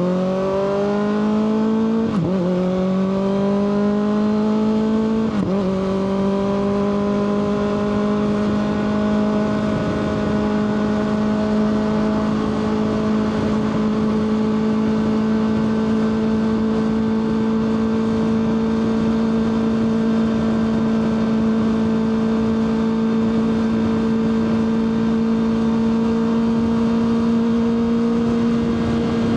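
Kawasaki ZX-6R inline-four engine accelerating, its pitch rising with two quick upshifts about 2 and 5.5 seconds in, then holding a steady note at cruising speed.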